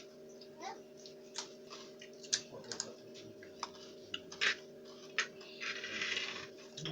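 Irregular sharp clicks and taps, about a dozen, over a steady low hum, with a louder rustling hiss about five and a half seconds in.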